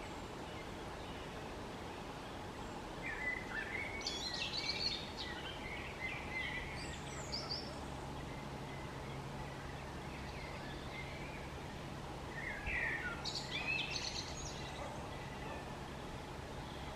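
Small birds calling high in the trees: two short bursts of chirps, the first about three seconds in and lasting several seconds, the second shorter, near the middle-end, over a steady background hiss and low hum.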